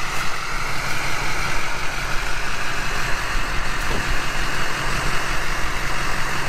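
Ford Super Duty pickup's engine running steadily at low revs while the truck tows a mired tractor forward.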